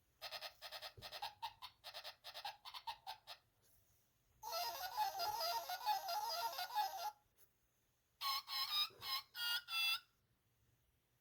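Electronic sound effects from a children's button sound book's sound chip: a quick run of short beeps, then a warbling jingle of about three seconds, then a few more beeps of changing pitch near the end.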